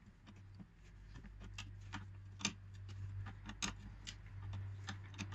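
Faint, irregular light clicks and ticks, a few a second with a couple of sharper ones, as the brake line's union nut is screwed into the new rear drum-brake wheel cylinder, over a steady low hum.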